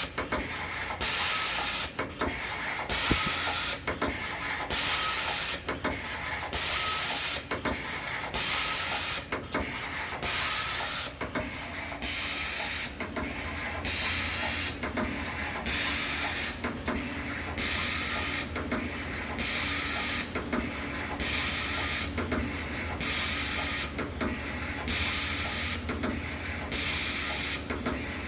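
Amada CTS-900NT CNC tapping machine running in a regular cycle: a short hiss about every two seconds over a steady low hum.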